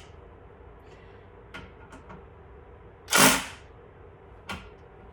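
Handling of small hardware and tools: a few light clicks, one louder scrape or rattle lasting about half a second a little after three seconds in, then a sharp click near the end.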